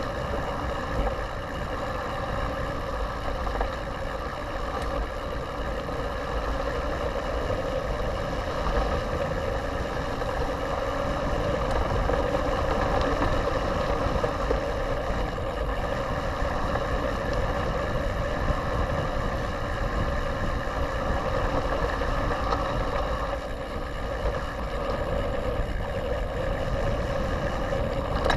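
Steady rushing of wind and tyre noise from a 29er mountain bike rolling along a dirt fire road, heard through a ride-mounted camera, with a constant low hum under it.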